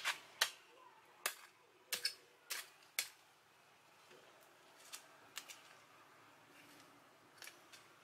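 Digging in garden soil with a hand tool: a run of about seven sharp, crisp clicks in the first three seconds as the tool strikes the dirt, then a few fainter ones.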